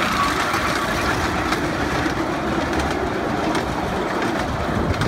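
Miniature ride-on train, with a Gordon-style blue locomotive, running past close by on its small ground-level track: a steady running noise with faint light clicks from the wheels on the rails.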